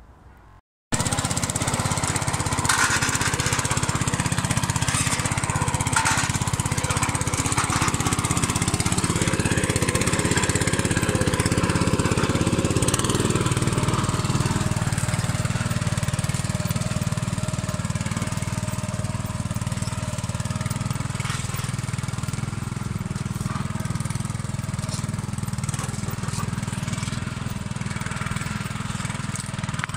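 Ruris 731K two-wheel tractor's 7.5 hp single-cylinder petrol engine running steadily while pulling a trailer loaded with branches, with a couple of knocks in the first few seconds.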